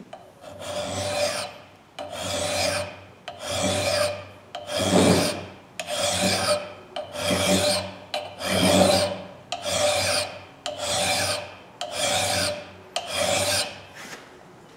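Hand file rasping across the steel bit of a forged hatchet head held in a vise, sharpening the edge. About eleven even strokes, roughly one a second, each with a faint metallic ring.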